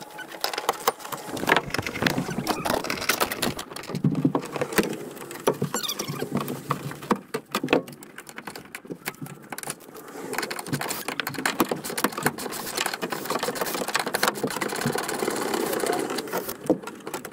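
Dense, irregular clicking and knocking of plastic trim panels, clips and fasteners being worked loose by hand and with tools.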